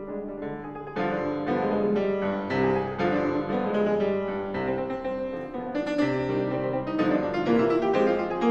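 Steinway & Sons grand piano played solo, a pop-rock song mashup of chords and melody in a steady stream of struck notes, growing louder about a second in.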